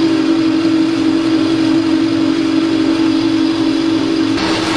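Hydraulic oil press's electric motor and hydraulic pump running with a steady hum, one strong tone held throughout. A burst of hiss joins near the end.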